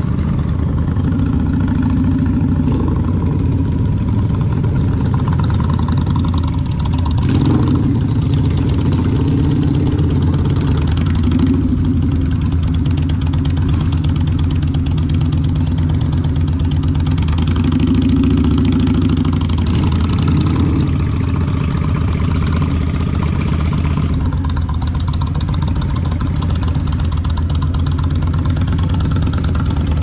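Motorcycle engine running steadily, its pitch rising and falling slightly a few times.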